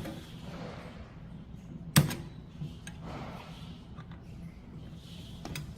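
A faucet wrench working on a draft beer faucet as it is tightened: light metal clicks and handling noise, with one sharp clack about two seconds in.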